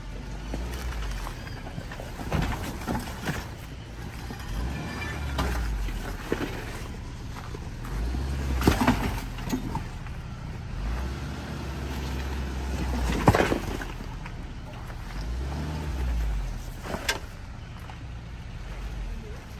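A Suzuki Jimny's engine driving over rough off-road ground, its low rumble swelling and easing several times, with sharp knocks from the vehicle over the terrain, the loudest a little under halfway through and about two-thirds of the way through.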